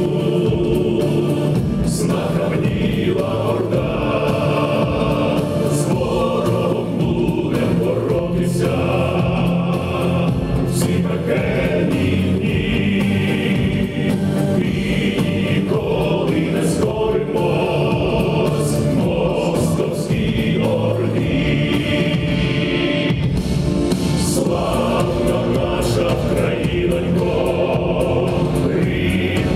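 Choral music: a choir singing held chords.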